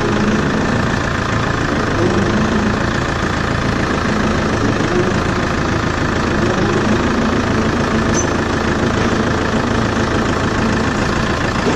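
Tractor engine running steadily at a constant, even speed.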